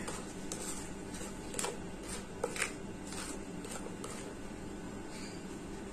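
Wooden spoon stirring dry cake flour mix in a ceramic plate: soft scraping through the flour with scattered light clicks of the spoon against the plate.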